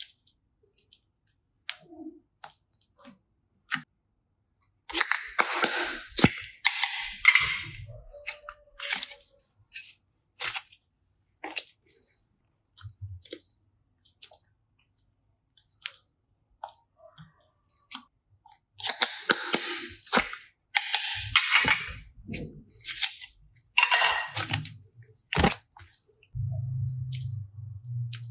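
Slime and clay being handled: scattered sharp clicks and taps, with two longer stretches of rustling, crackly noise, about five seconds in and again about nineteen seconds in, and a low hum near the end.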